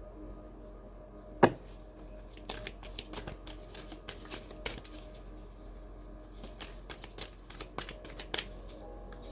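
A deck of tarot cards being handled and shuffled, with quick irregular flicks and snaps of the cards. One sharp, louder knock comes about a second and a half in.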